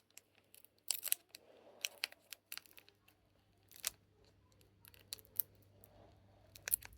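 Foil trading-card booster pack being handled, giving scattered soft crinkles and clicks at irregular intervals.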